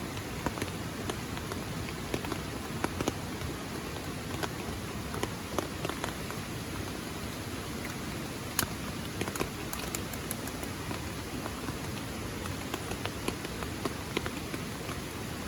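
Light rain falling: a steady hiss with many scattered, irregular drops ticking sharply on a surface close by.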